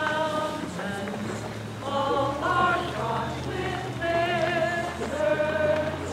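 Small community choir singing a poem set to music, voices holding long notes with vibrato.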